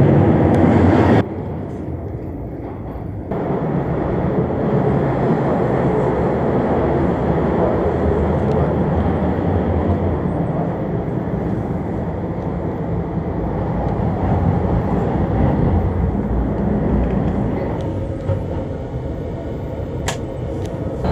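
Steady running rumble of a Keisei Skyliner express train heard from inside the car; it drops sharply about a second in and comes back about two seconds later. Near the end a short sharp click as a toilet door lock is turned.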